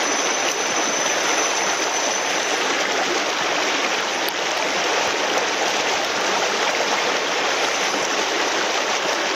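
Fast, shallow creek rushing over riffles close by: a steady, even wash of running water.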